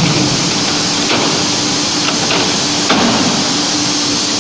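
Aluminium coil-processing machinery running, with a steady loud noise over a low steady hum and a few light knocks about one, two and three seconds in.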